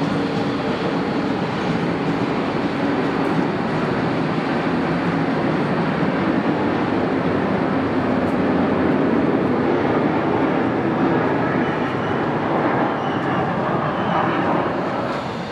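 Docklands Light Railway train running, a steady rumble that swells slightly in the middle and eases near the end.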